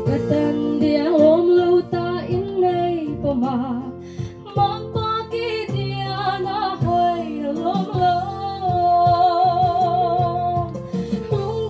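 A woman singing a solo song into a microphone over instrumental backing, with a long held note with vibrato about two-thirds of the way through.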